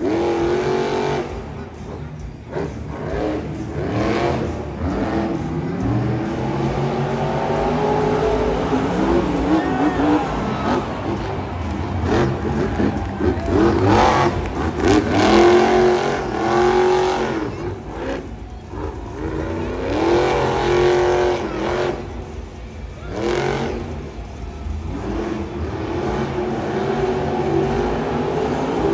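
Megalodon monster truck's supercharged V8 engine revving hard and easing off again and again, its pitch climbing and dropping with each blip of the throttle, as the truck jumps, spins and tears across the dirt.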